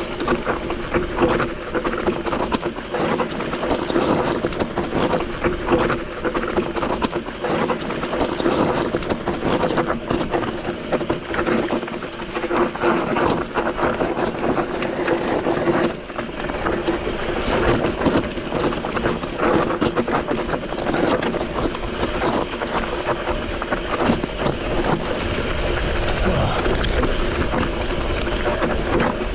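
Mountain bike running fast down a loose, rocky trail: a steady crackle and rattle of tyres crunching over gravel and the bike jolting over rough ground. Wind rumbles on the microphone and grows stronger near the end.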